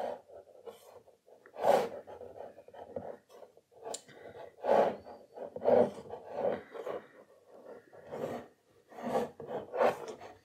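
Pencil drawing on watercolour paper: a series of short, scratchy strokes, roughly one a second, as lines are sketched in.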